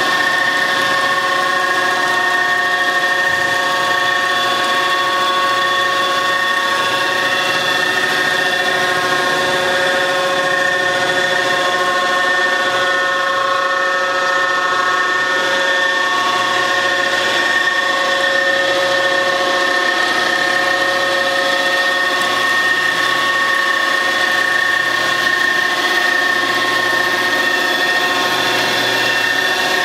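A grinder running steadily at constant speed with no load changes, giving off a mix of steady high whining tones.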